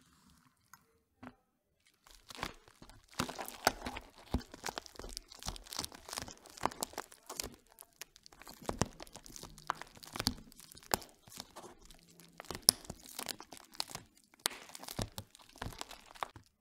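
Plastic bubble-wrap zip pouch being handled and pulled open at its seal: crinkling plastic with many sharp clicks and cracks. It begins about two seconds in and has a short lull midway.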